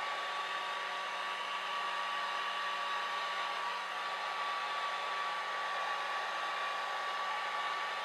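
Small, low-powered handheld hair dryer running steadily, blowing air across the paper: an even rush of air with a thin constant whine.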